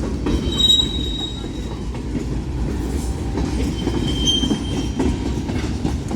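Freight train rolling past: a steady rumble of wheels on rail, with brief high-pitched wheel squeals about half a second in and again around four seconds in.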